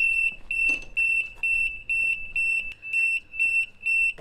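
Shooting-range warning alarm, set off by a push-button under its red beacon, beeping a single high pitch in an even pulse about twice a second.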